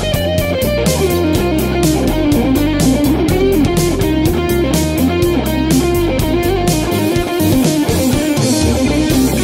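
Electric guitar playing a fluid lead line with notes bending in pitch, over a backing track with a steady beat and low bass notes.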